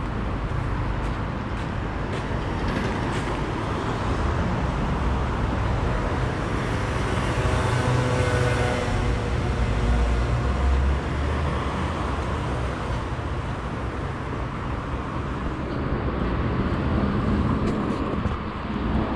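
Road traffic rumbling steadily, with one vehicle passing louder about halfway through and then fading.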